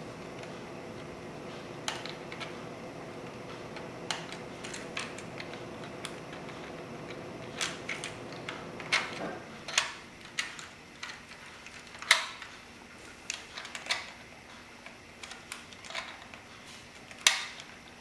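Plastic Lego bricks and Technic parts of a Lego puzzle box clicking and clacking as it is handled and its side knobs turned: scattered sharp clicks, more frequent and louder in the second half. A steady hum runs underneath and stops about halfway through.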